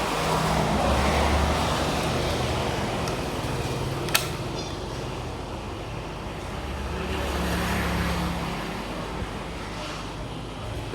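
Steady, rumbling traffic-like noise that swells twice, once near the start and again near the end, with a single sharp click about four seconds in.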